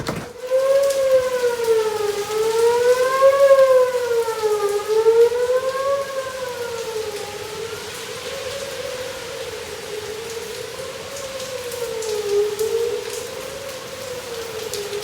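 Outdoor tornado warning siren wailing, its pitch slowly rising and falling about once every two and a half seconds. It is loudest in the first six seconds, then softer.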